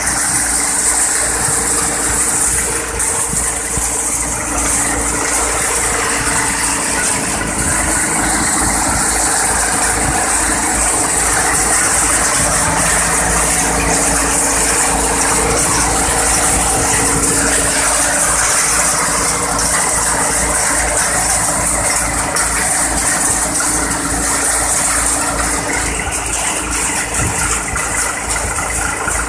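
Annapurna tokri-model dal and chana thresher running steadily as it threshes chickpeas: a loud, constant machine hum under a dense hiss of grain and chaff going through.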